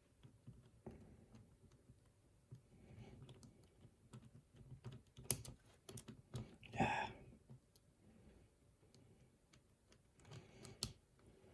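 Faint, scattered small metallic clicks and taps from a padlock and lock-pick tools being handled, with low rustling between them.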